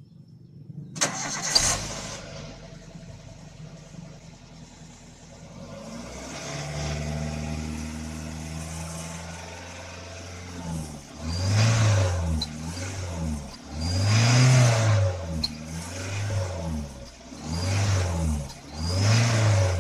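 Petrol car engine starting about a second in, idling, then revved in a run of throttle blips, its pitch rising and falling with each. It is heard at the tailpipe, which has a cheap turbo-sound whistler fitted; the whistle effect is faint.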